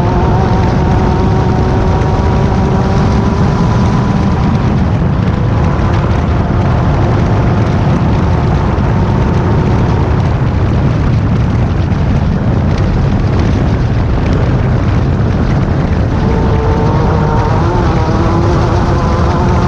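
Class 10 desert race car running flat out, its engine holding a steady pitch over a loud, continuous low noise. The engine tone fades in the middle and comes back near the end.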